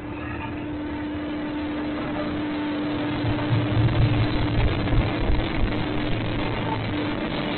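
Diesel locomotive engine running with a steady hum, its low rumble growing louder about halfway through.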